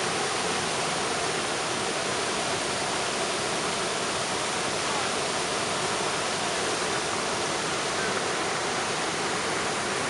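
Jägala waterfall: a steady rush of water pouring over its limestone ledge and splashing into the foaming pool below.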